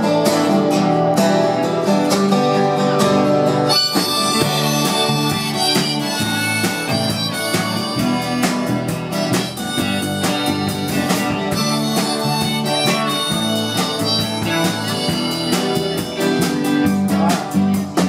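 A small rock band playing an instrumental intro: acoustic and electric guitars strumming chords, with a harmonica carrying the melody from about four seconds in.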